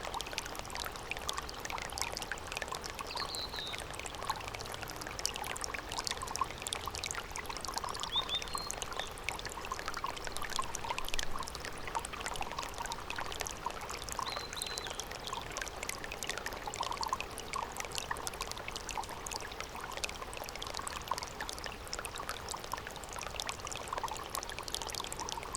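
Stream water running with a steady babbling, and a few faint short bird calls high above it.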